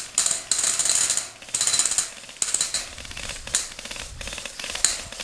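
Airsoft guns firing on full auto: rapid rattling bursts of about half a second to a second in the first two seconds, then shorter, scattered bursts and shots.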